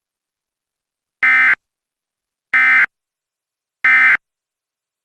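Emergency Alert System end-of-message signal: three short bursts of SAME digital data tones, about a second and a quarter apart, marking the end of the alert.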